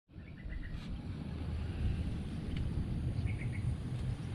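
Open-air ambience: a steady low rumble, with short high bird chirps in two brief runs, near the start and again about three seconds in.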